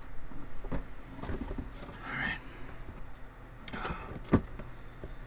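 Small knocks and rustling from items being handled and picked through in the mystery box, with one sharper knock about four seconds in.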